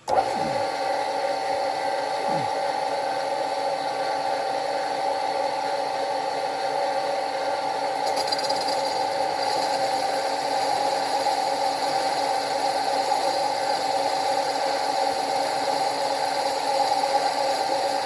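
Milling machine with a right-angle head starting up abruptly and running steadily, its cutter machining a hole in a model steam locomotive's steel boiler end plate. A higher whine joins in about eight seconds in.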